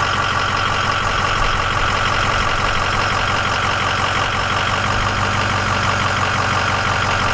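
A Ford Excursion's 6.0-litre Power Stroke V8 diesel idling steadily, with a steady whine on top. It cuts off suddenly at the very end.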